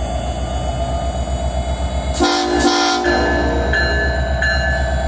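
NYSW SD70M-2 diesel locomotive's 16-cylinder EMD 710 engine running with a low, throbbing rumble as it starts to take off. About two seconds in, the horn sounds two short blasts. After that, the bell rings about every two-thirds of a second.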